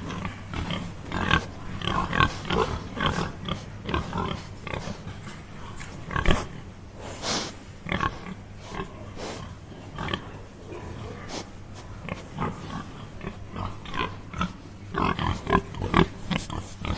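Domestic pigs giving many short, overlapping grunts throughout, with a longer high squeal about seven seconds in. A steady low hum runs underneath.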